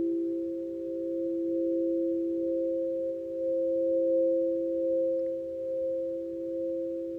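Crystal singing bowls being played by running a mallet around the rim, two steady pure tones ringing together and gently swelling and easing in loudness.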